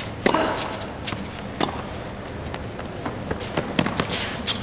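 Tennis rally: a ball struck back and forth by rackets, with three sharp hits a second or two apart and the players' footsteps on the court in between.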